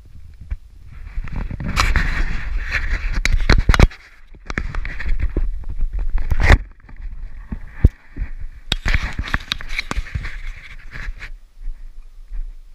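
Rustling and scraping noise with many sharp clicks and a low rumble, in three stretches of a few seconds each with quieter gaps between, typical of a handheld camera's microphone being rubbed and jostled while walking.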